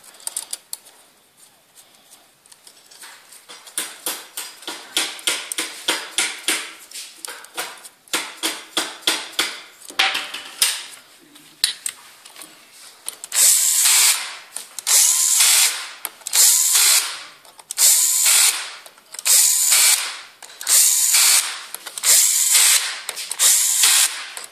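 Cordless power driver working on the clutch of a Jotagas trials bike: first a long run of quick sharp clicks, then from about halfway the motor spins in about nine short, even bursts with brief pauses between.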